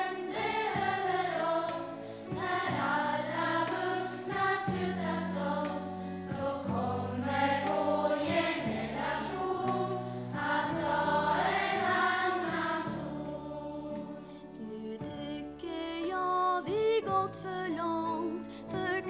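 Children's choir singing a song with instrumental accompaniment and a steady bass line. About three-quarters of the way through, the voices thin out and a lighter melody carries on.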